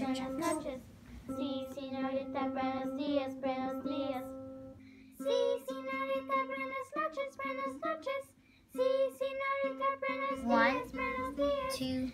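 A children's song: a child's singing voice over music, in short sung phrases with two brief pauses.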